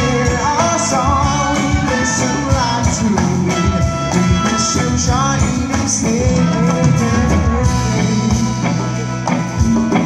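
A live band playing through a PA: a man singing over electric guitars and drums.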